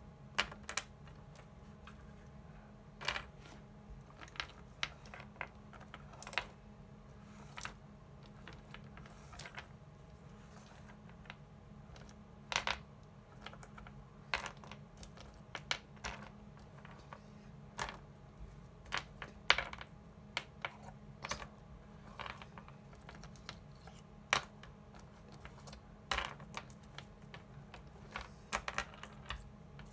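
ELNA 680 µF 35 V aluminium electrolytic capacitors clicking and clattering against each other and the desk as they are picked up, slid and set down in sorting, in irregular taps about one or two a second, over a steady low hum.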